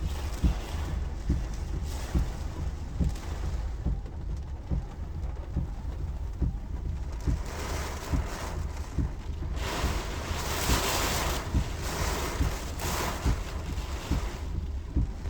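Hurricane winds buffeting the microphone: a steady low rumble broken by rapid thumps. A stronger gust with a rushing hiss builds about seven seconds in, is strongest a few seconds later, and dies down near the end.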